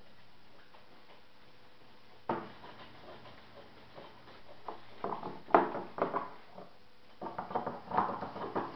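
Big scissors cutting fiberglass cloth to trim it, a single click about two seconds in, then a run of short crisp snips in the second half.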